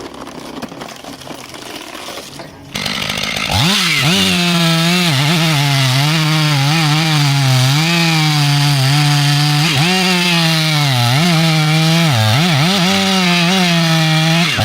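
A two-stroke chainsaw revs up about three seconds in and then runs at high speed cutting through a tree. Its engine pitch dips and recovers again and again as the chain bogs under load in the wood. Before it revs, a quieter, lower machine noise is heard.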